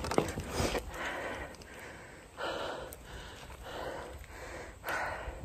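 A person breathing hard and fast while hurrying on foot, with a loud breath about every second.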